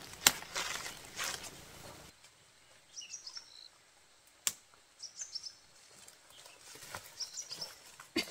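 Leafy stems rustling and snapping as wild greens are picked by hand, with sharp clicks in the first two seconds. Then it goes quiet, and a small bird chirps in short high phrases three times.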